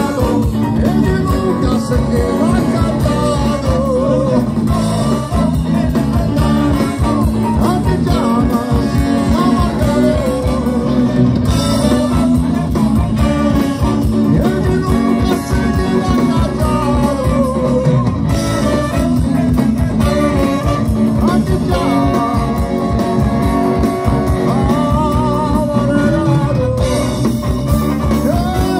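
Live ska band playing at full volume, a brass-and-saxophone horn section over electric guitars, keyboard and drums, with singing.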